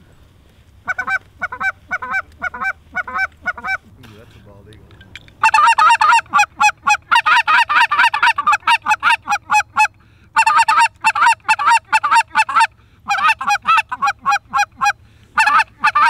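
Canada goose call blown by a hunter: loud honks and clucks in quick strings, a short run about a second in, then longer fast runs of several notes a second from about five seconds in, broken by brief pauses.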